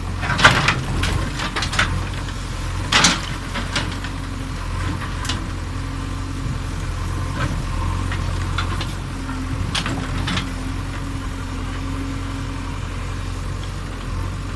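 Diesel engine of a backhoe loader running steadily, with sharp crashes and clatters of brick and masonry as its bucket knocks down a wall; the loudest crashes come about half a second in and again about three seconds in.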